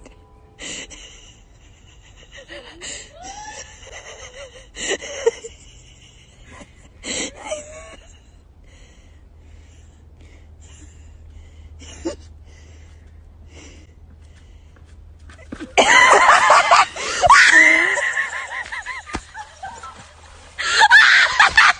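Birds giving wheezy, laugh-like calls. Short scattered calls come in the first half, then two loud stretches of rapid, breathy calling, one about 16 seconds in and another near the end.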